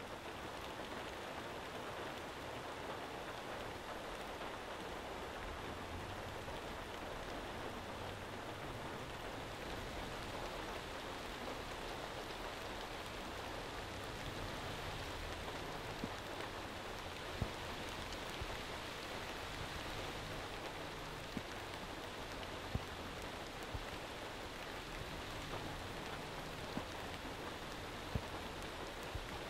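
Steady rain falling, with a few sharp ticks of single drops or drips hitting a hard surface in the second half.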